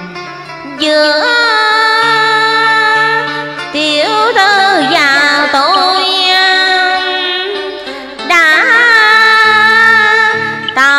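A woman singing long, wavering held notes in Vietnamese cải lương (tân cổ) style over a karaoke backing track, in two phrases, the second starting about eight seconds in.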